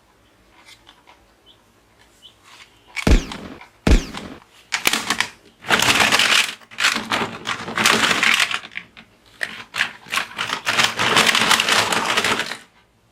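Two sharp knocks, then several seconds of loud crackling and crinkling in stretches that stops sharply near the end: handling of a boxed plastic toy pistol and its packaging.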